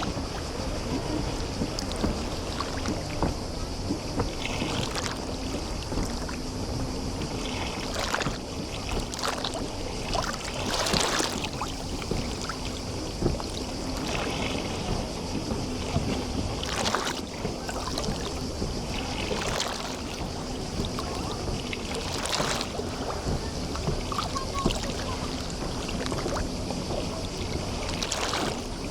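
Sea water lapping and splashing against the shore of a bay at irregular moments, over a steady high hiss and a low steady hum.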